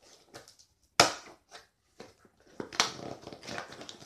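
Packing tape being ripped and parcel packaging crackling as a package is torn open, in sharp loud rips about a second in, near three seconds and again at the end, with softer rustling between.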